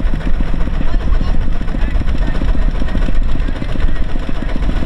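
Heavy machine's engine running steadily under load, with fast, even pulses.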